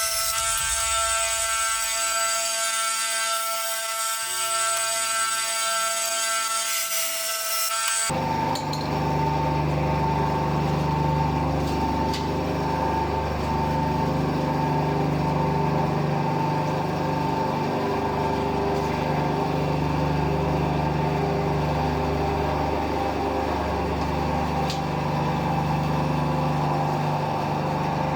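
Parkside bandsaw running and cutting wood, a steady high whine. About eight seconds in the sound changes abruptly to a steady, lower motor hum.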